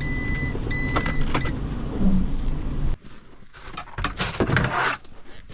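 Van engine running under load while the van is stuck in snow, with a repeating electronic beep that stops about a second and a half in. About three seconds in it gives way to plastic traction boards being handled: irregular clattering and scraping of hard plastic.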